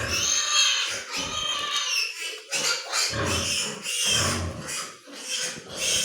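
Pigs squealing in a string of short, high-pitched calls, one or two a second.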